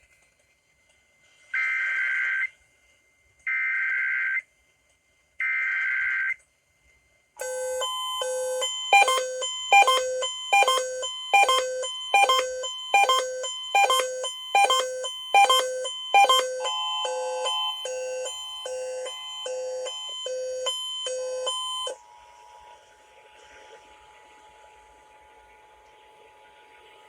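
Radio Emergency Alert System test signalling. Three short bursts of EAS digital header data, each a harsh buzzy screech of under a second. Then, from about seven seconds, a loud run of rhythmic pitched beeps, about four every three seconds, over a steady two-tone attention signal, dropping near the end to a faint steady tone under hiss.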